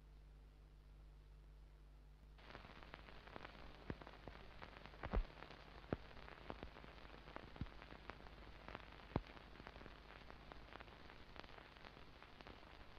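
Hiss and crackle of an old recording's surface noise, with scattered sharp pops and clicks; it cuts in abruptly a couple of seconds in.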